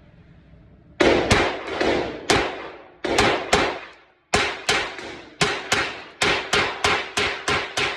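Glock 26 9mm pistol firing a rapid string of shots as a magazine is emptied, starting about a second in, at roughly three shots a second and quickening toward the end, each shot trailing off in a short echo.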